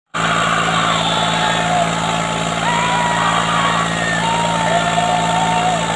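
Tractor engine running steadily under load as a line of men pulls against it, with the men shouting long, drawn-out calls over the engine.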